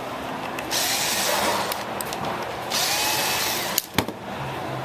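Electric screwdriver running in two short bursts, backing screws out of the side of a laptop hard drive caddy. Two sharp clicks follow about a second before the end.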